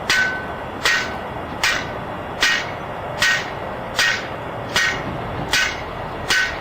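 Evenly paced hammer blows, nine strikes about one every 0.8 seconds, each with a short metallic ring, over a steady hiss.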